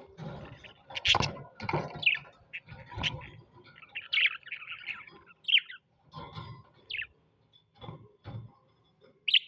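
Pet parrots chirping: a run of short, squeaky call notes, several quickly falling in pitch, interspersed with soft knocks and thuds.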